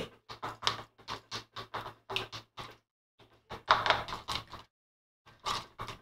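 Stirring stick scraping and tapping against a plastic bowl while white glue and water are mixed to one consistency: short strokes about three a second, with two brief pauses.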